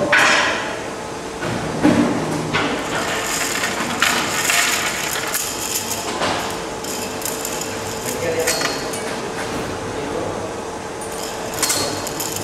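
Scattered knocks and clinks, with voices in the background and a steady hum, echoing in a large workshop hall.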